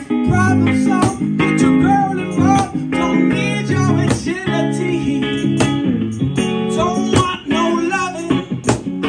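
A band playing a song: strummed guitar over steady low bass notes, with a voice singing a melody.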